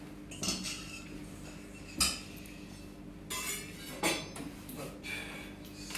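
A handful of short knocks and clinks from kitchen utensils and dishes being handled on a table and worktop. The loudest knock comes about two seconds in.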